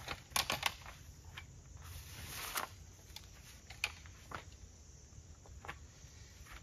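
A folding camp chair being set up: a quick cluster of clicks near the start as the frame is handled, a fabric rustle that swells and stops about two and a half seconds in, then a few scattered clicks and steps on leaf litter.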